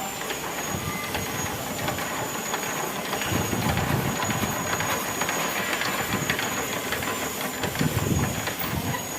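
Single-cylinder KOYO 25 HP diesel engine running steadily with a rapid clattering knock, on its test run after the cylinder head was refitted.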